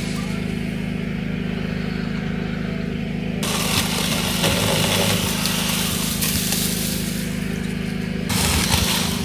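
Powered pruning saw running with a steady motor drone; a little over three seconds in, a rough hiss joins it for about five seconds as the chain bites into a branch.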